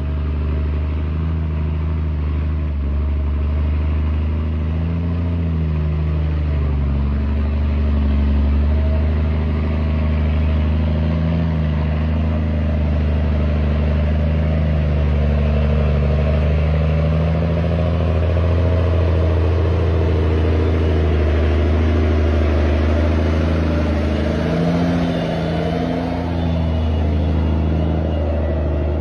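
Logging truck's diesel engine pulling uphill under load: a steady, loud, low engine drone whose pitch wavers a little, briefly dipping and rising again near the end.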